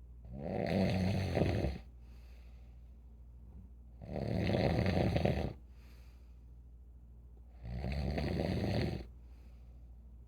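A sleeping elderly person snoring: three long, rasping snores about four seconds apart, with faint breaths between them, over a steady low hum.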